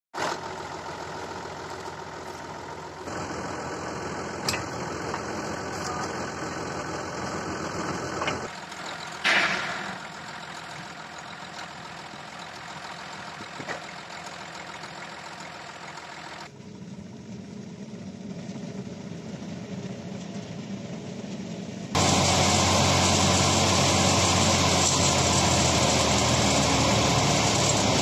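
Tractor engine running and driving a wheat thresher through its PTO shaft: a steady machine drone that changes abruptly several times and becomes much louder and harsher about three-quarters of the way through.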